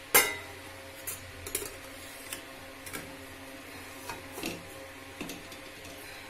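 Metal cookware clattering: one sharp, loud clank just after the start, then a run of lighter clinks and taps.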